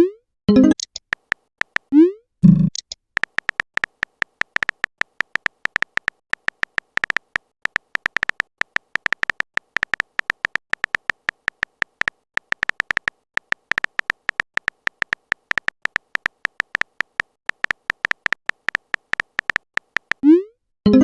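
Phone-keyboard typing sound effect: a quick, irregular stream of short electronic clicks. Short rising pop sounds of chat messages appearing come near the start and again near the end.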